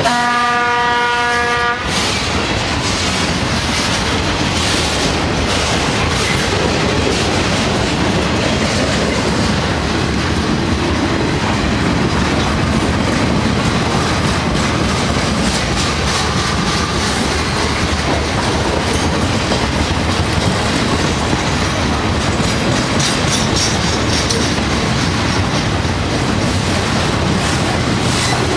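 A train horn sounding for the first two seconds or so, then a long freight train's cars rolling past close by: a steady rumble with the clickety-clack of wheels over the rail joints.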